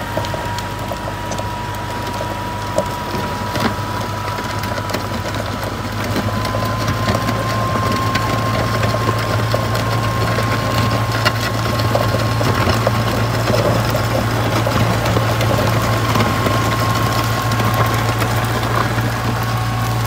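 Tractor engine running steadily under load while its rear box blade drags and scrapes through driveway gravel, with a thin steady whine over the engine note. The sound gets a little louder about six seconds in.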